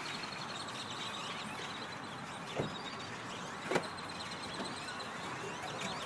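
A large flock of birds calling overhead: a dense, steady din of many overlapping chirps and chatters. There are two sharp knocks, about two and a half seconds and about three and three-quarter seconds in.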